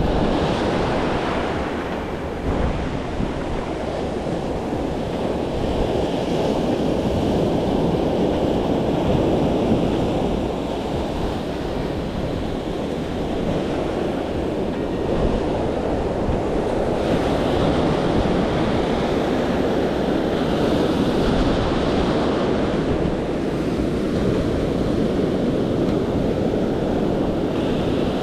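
Ocean surf breaking and washing up a sandy beach, a steady rush of foaming water that swells and eases as each wave comes in and draws back.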